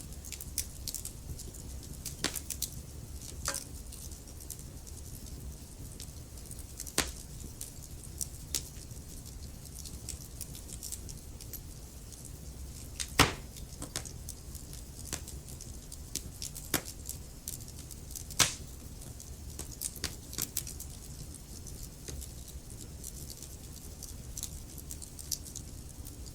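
Wood fire in a fireplace crackling, with scattered sharp pops over a low steady rumble. The two loudest pops come about halfway through and again some five seconds later.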